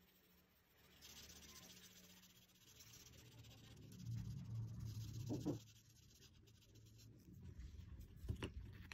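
Faint strokes of a felt-tip marker rubbing across paper while coloring, with a few light knocks near the end.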